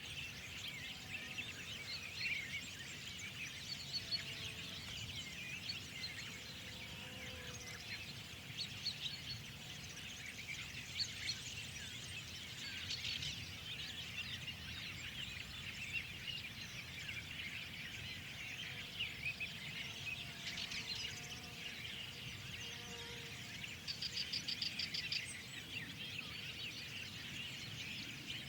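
Many small songbirds chirping and twittering at once in a dense, continuous spring chorus, with a few fainter lower whistles underneath. Near the end one bird gives a fast trill of quickly repeated notes.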